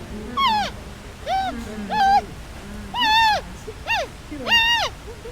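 A cat meowing repeatedly: about six short meows, each rising and falling in pitch, with short pauses between them.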